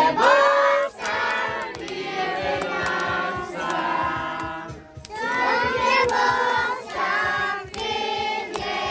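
Several voices singing a song together, with some long held notes, over a steady low beat.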